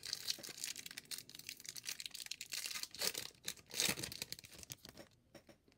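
A baseball card pack's wrapper being torn open and crinkled: a run of short crackling rips and rustles, heaviest about three to four seconds in, dying away near the end.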